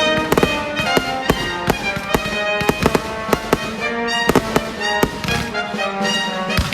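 Fireworks bursting and popping in quick, irregular succession over a loud orchestral music soundtrack played for a pyromusical show.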